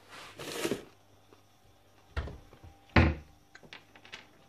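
Kitchen handling noises: a brief rustling swish, then two dull thumps about a second apart, the second the loudest.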